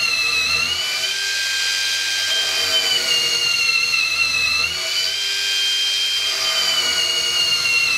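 Cordless drill running continuously as it bores a bit down into a wooden beam. Its motor whine sags slightly in pitch under load and picks up again a few times, around the middle and near the end.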